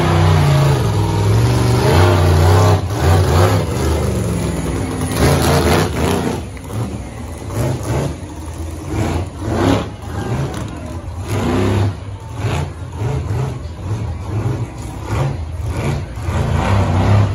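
Monster truck engine revving hard, its pitch rising and falling again and again as the driver works the throttle.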